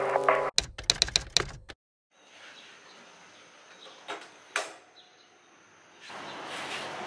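A quick run of sharp clicks lasting about a second, then faint room tone with two light knocks, and a steady hiss that starts near the end.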